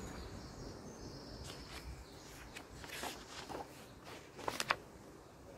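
Paper pages of a picture book being handled and turned: a few short, crisp rustles and flicks, sharpest about four and a half seconds in, over faint outdoor background.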